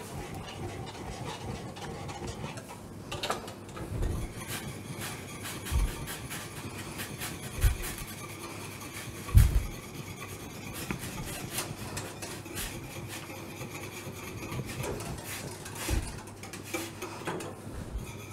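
A wire whisk scraping and stirring against the bottom of metal pans as cornmeal is whisked into boiling water for polenta, with a few dull thumps, the loudest about halfway through.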